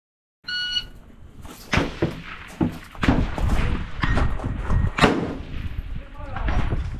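A short electronic shot-timer beep, then a string of sharp bangs and knocks over a low rumble: rifle fire on the range, mixed with the knocks of a rifle and shooting bag being set down on a wooden rooftop barricade.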